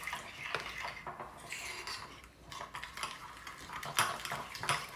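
Metal spoon stirring a thin liquid batter in a ceramic bowl, clinking and scraping against the bowl, with a couple of sharper clinks near the end.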